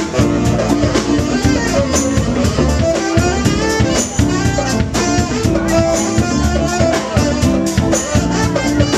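A live band playing music, with a drum kit keeping a steady beat under the other instruments.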